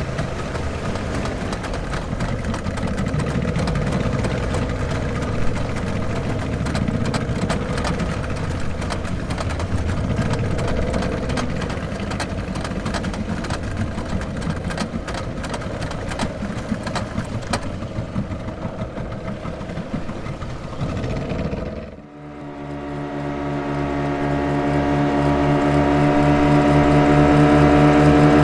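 Speed boat engine running with a rough, rushing noise. About three quarters of the way through it cuts off abruptly, and a steadier engine drone with an even pitch starts and grows louder.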